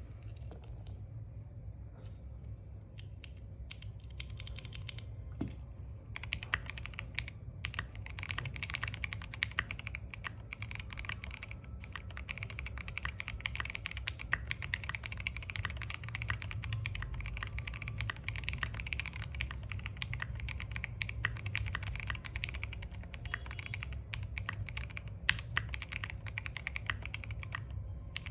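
Typing on a custom mechanical keyboard, an Exclusive E7v2 with Gateron CAP Golden Yellow V2 linear switches, KAT BoW keycaps and an FR4 plate. A few scattered keystrokes come first, then about six seconds in it turns to fast, continuous typing.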